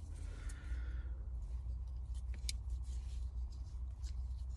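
A few faint metallic clicks from a Leatherman Wave multitool being handled, its folding tools opened and closed, over a steady low rumble.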